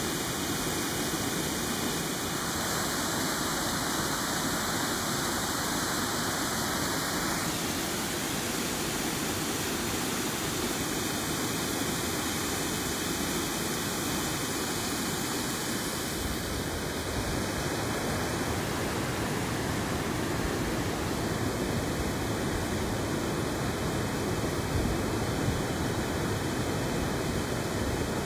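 Myra Falls waterfall, water pouring down a rock cliff into pools: a steady, unbroken rushing noise.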